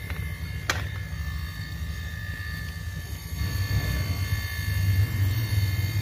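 Hermetic refrigerator compressor running as a homemade air compressor, a steady low hum that grows louder a little past halfway, with a single sharp click under a second in. The owner calls this compressor very weak: it lets air flow back through itself instead of holding pressure.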